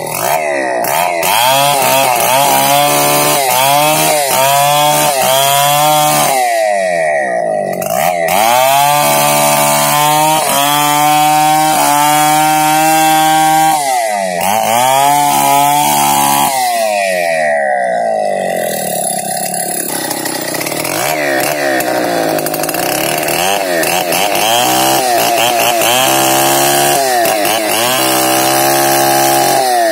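Two-stroke chainsaw ripping a log lengthwise, running near full throttle. Its engine pitch sags under load and climbs back again and again as the chain bites and eases in the cut.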